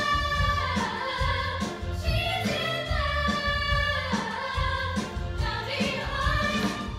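Musical-theatre chorus of women singing together in harmony, backed by the pit orchestra, with a steady bass pulse underneath.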